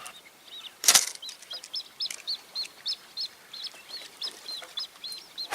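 A small bird calling a steady run of short, high chirps, about three a second. A brief loud knock comes about a second in.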